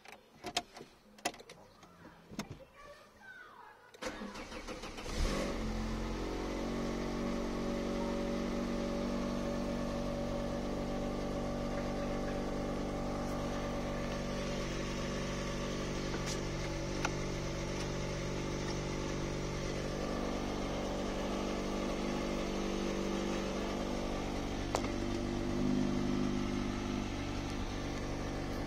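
A Peugeot 205's TU5JP 1.6-litre four-cylinder petrol engine being started. After a few clicks, the starter cranks briefly about four seconds in, and the engine catches about a second later. It then settles into a steady idle.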